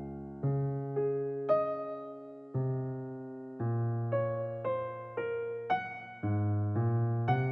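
Intro music: soft electric piano playing slow sustained chords, a new chord struck about once a second and left to ring.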